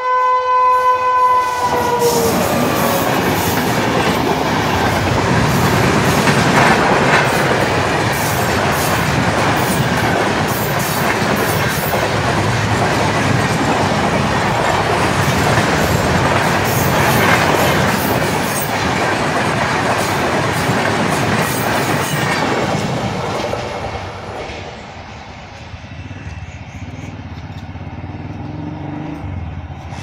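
WAP7 electric locomotive's horn sounding one steady, many-toned blast that drops slightly in pitch and cuts off about two seconds in. The express train then runs past at speed, a loud rush of coach wheels clattering on the rails, which falls away after about twenty-three seconds as the train moves off.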